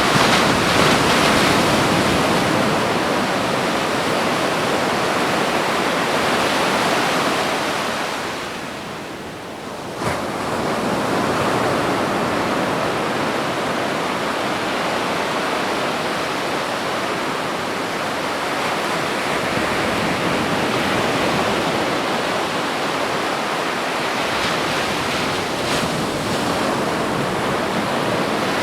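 Ocean surf washing onto a beach, a steady rushing noise that eases off for a moment about nine seconds in and then comes back suddenly.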